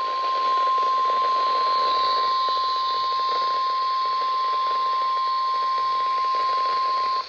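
NOAA Weather Radio 1050 Hz warning alarm tone: one steady, unbroken beep held for about seven seconds over faint radio hiss, cutting off just before the end. The tone signals that a warning broadcast is about to be read.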